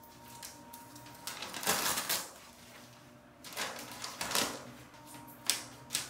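Sulphur-crested cockatoo tearing and chewing newspaper with its beak: two bursts of paper crackling and ripping, the first just over a second in and the second past the midpoint, then a couple of sharp paper snaps near the end.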